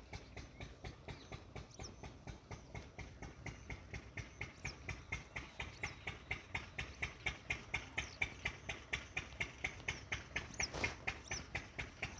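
An engine chugging steadily at about four to five beats a second, getting louder a few seconds in, with a few faint high bird chirps over it.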